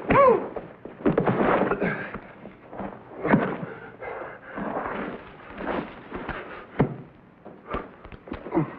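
A fight between men: short yells and grunts with scuffling and a series of sharp thuds and knocks.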